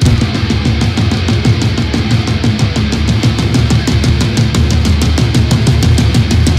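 Heavy metal drum kit played live over the band's recorded track, a fast, steady stream of cymbal and drum hits with a heavy low end of bass drum and guitars. The full band comes in all at once at the start, after a quieter guitar passage.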